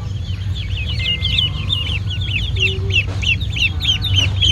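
Ducklings peeping: many short, high chirps a second, overlapping without pause, over a steady low hum.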